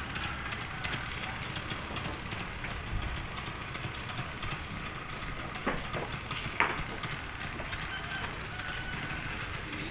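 A low steady engine rumble, with two sharp knocks a little past halfway.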